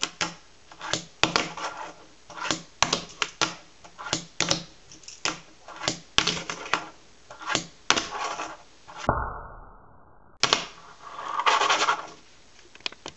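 Fingerboard being flicked into heelflips on a tabletop: a run of sharp plastic-and-wood clacks and taps as the little board pops, flips and lands, a few a second, with a denser rattle of clacks near the end.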